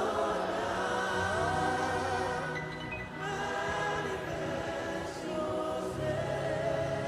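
Gospel worship music: a choir singing long held notes over a steady sustained accompaniment.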